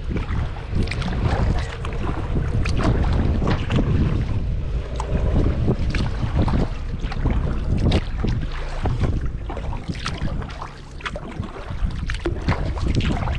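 Kayak paddle strokes dipping and splashing in calm river water, with wind rumbling on the microphone.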